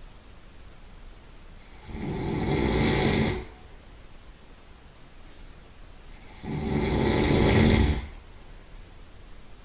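A person's nasal snoring: two long snores, each about a second and a half and growing louder, some four and a half seconds apart, with quiet between.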